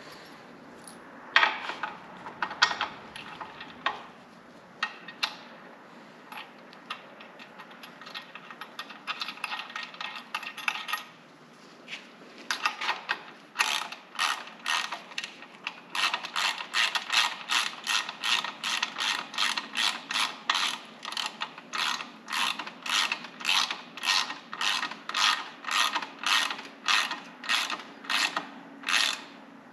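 Hand socket ratchet clicking as the shock mount bolts are run down and tightened: scattered clicks and metal knocks at first, then from about halfway a steady run of ratchet strokes, about two a second.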